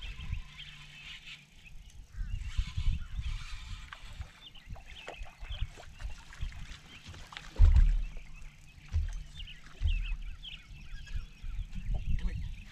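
Birds calling in short, repeated chirps and honks, over low thumps and rumbles from movement on the boat deck while a fish is fought and landed.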